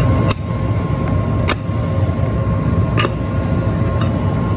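Shop Fox W1727 dust collector running steadily at full speed just after spinning up: a motor and impeller hum with a strong low rumble. Three sharp clicks stand out over it.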